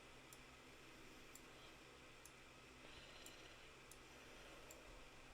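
Near silence: faint steady hiss with about six soft, isolated clicks spread through it.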